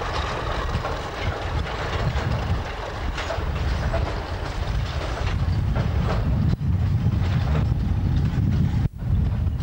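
Diesel-hauled train of empty car-carrier wagons rolling past, a steady low rumble with wheels clicking over the rail joints.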